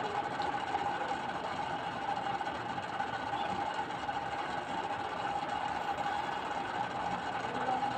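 Steady machine-like hum with a constant mid-pitched tone running under it.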